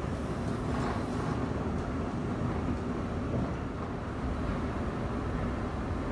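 Steady low rumble and hum of subway station machinery, with a few faint clicks in the first second.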